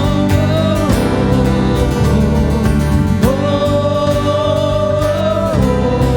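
Church worship band playing a song with singing, the melody held on long sustained notes over a steady band accompaniment.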